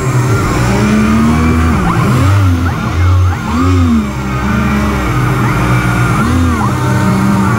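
Electric motors spinning an RC hovercraft's Master Airscrew 11x10 thrust propellers, whining up and down in pitch again and again as the throttle is worked. A steady hum from the lift fan holds underneath.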